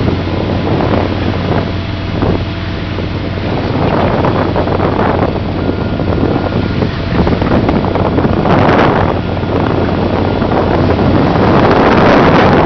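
A fishing boat's engine hum under wind buffeting the microphone, with water churning and splashing around a net packed with small fish as it is hauled; the rushing noise swells about five, nine and twelve seconds in.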